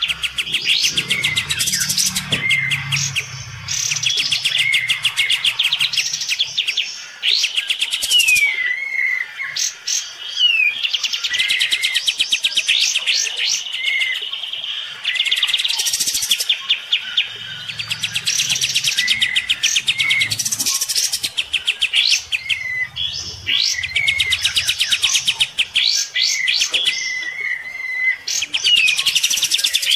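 Kapas tembak bulbuls singing a loud, fast song duel: long bouts of rapidly repeated trilled notes, each a few seconds long, with short falling whistles between them.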